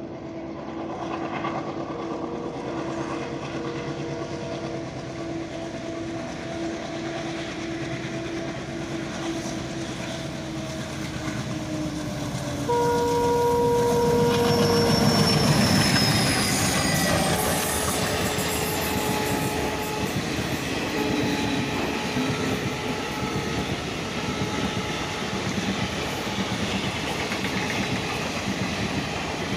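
Twin ALCO WDM3D diesel locomotives chugging as they approach with a passenger train, their engine drone sliding down in pitch as they near. A train horn sounds for about two seconds about halfway through as the locomotives pass. The coaches then roll by with a steady rumble and clickety-clack of wheels on rail joints.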